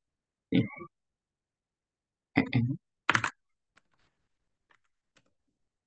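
A few short muttered words, then faint, scattered computer keyboard clicks as commands are typed.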